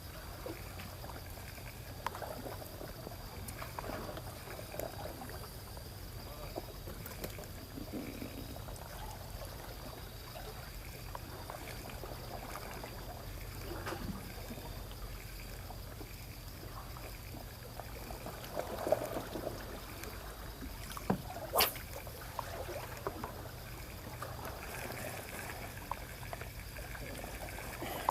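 Small waves lapping and trickling against the shore, over a steady low hum, with a few sharp clicks and knocks from handling the fishing gear.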